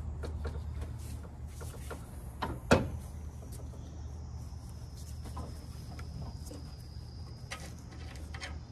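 Light metal clicks and knocks as a new exhaust manifold with built-in catalytic converter is handled and worked onto the cylinder-head studs, with one sharper knock a little under three seconds in, over a steady low hum.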